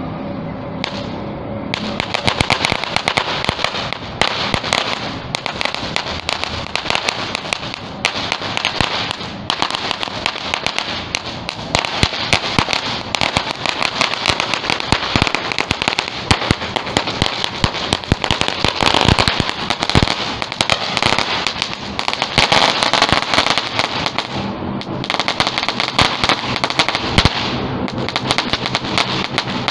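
Firecrackers going off in a rapid, continuous crackle of bangs, starting about two seconds in.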